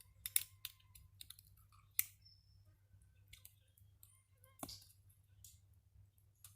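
Oyster shells clicking and knocking against each other and the knife as they are handled and opened, in a scattered run of sharp clicks, the loudest near the start and about two seconds in.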